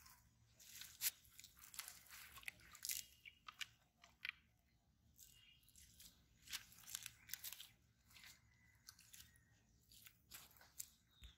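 Faint, irregular crunching and rustling footsteps through dry grass and earth, a scatter of short crackles that are densest in the first few seconds.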